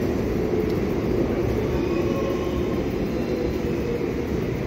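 Steady hum and rumble of a stopped electric suburban train standing at the platform.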